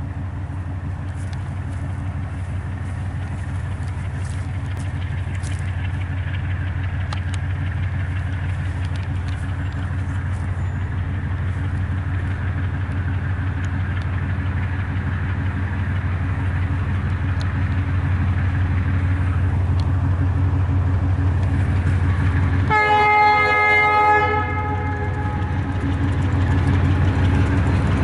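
Owego Hartford Railway diesel locomotive approaching, its engine a steady low rumble that grows louder. About 23 seconds in, the locomotive's horn sounds once for about a second and a half.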